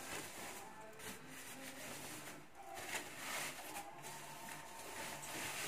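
A thin plastic bag rustling and crinkling in irregular swells as a guitar is pulled up out of it.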